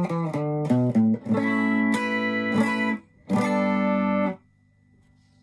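Fender Japan ST62 Stratocaster played through a Marshall Class5 valve amp with a Yamaha CO-01 compressor in the chain. It plays a quick descending run of single notes, then two ringing chords; the second is cut off short about four seconds in, leaving a faint amp hum.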